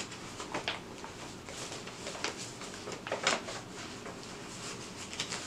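Paper rustling as the pages of a large book and loose sheets are leafed through by hand, in several short swishes, the loudest about three seconds in.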